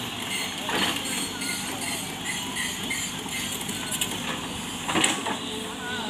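SANY crawler excavator's diesel engine running steadily while it works, with two louder knocks, about a second in and near the end, as the bucket comes down on the earth and stones.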